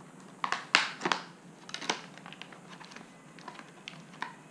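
Stiff plastic blister packaging crackling and clicking as it is pulled open, with a dense run of sharp crackles in the first two seconds and a few scattered clicks after.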